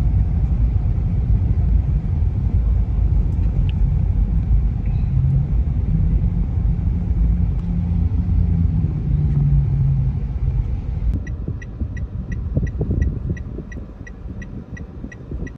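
Low, steady rumble of a moving vehicle, easing off over the last few seconds. Near the end comes a fast, regular series of short high beeps, about three a second.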